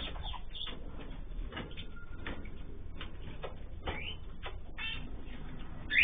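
Cockatiels and small finches in an aviary calling, a string of short chirps and calls, a few of them rising in pitch, with a louder call at the very end.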